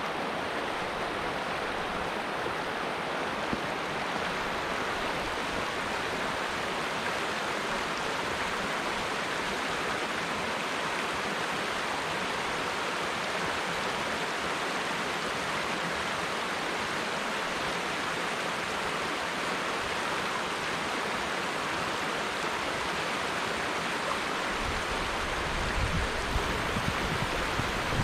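Fast-flowing snowmelt stream rushing over rocks, a steady rush of water close by. Near the end a low rumble joins it.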